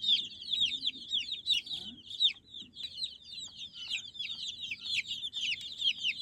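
A brood of baby chicks peeping without a break: many short, high calls, each falling in pitch, overlapping one another.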